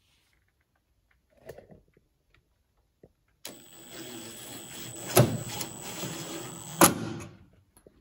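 Makita cordless brushless impact driver running a screw into a taillight bucket for about four seconds, its motor whining steadily, with two loud sharp knocks in the second half.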